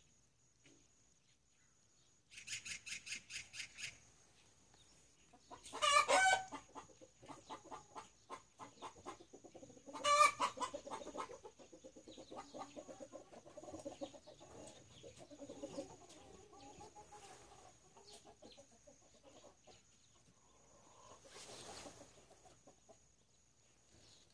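Chickens clucking, with two loud calls about six and ten seconds in. A quick run of high chirps comes a couple of seconds in.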